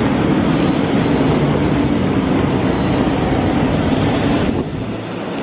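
Jet engine running on the ramp: a loud, steady rush with a thin high whine over it, dipping briefly near the end.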